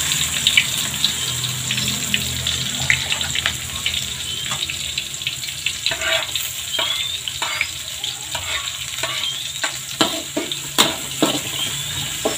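Sliced shallots, garlic and chilies sizzling in hot oil in a wok, with a metal spatula scraping and tapping against the pan as they are stirred; the scrapes and taps come more often in the second half.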